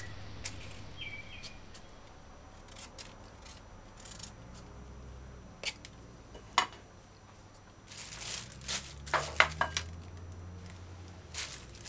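Scattered light clicks and crinkles of a kitchen knife cutting pumpkin pieces and handling plastic bags on a countertop, with a denser run of crinkling and clicking near the end.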